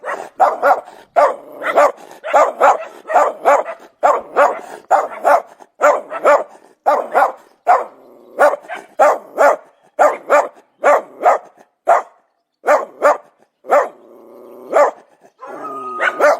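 A dog barking over and over in quick runs of sharp barks, about three a second, with short breaks between runs. A short held higher tone sounds near the end.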